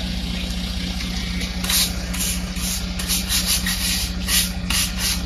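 Concrete mixer truck's diesel engine running steadily at idle. From about one and a half seconds in, a long-handled broom makes quick hissing strokes across wet concrete, about three a second.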